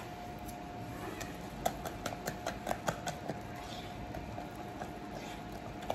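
Thick besan (gram-flour) batter being beaten by hand in a clay pot: irregular soft wet slaps and clicks, bunched between about one and three seconds in, over a faint steady hum.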